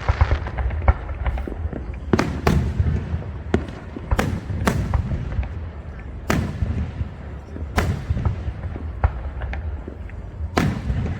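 Fireworks going off: about a dozen sharp bangs at uneven intervals, some in quick pairs, over a steady low rumble.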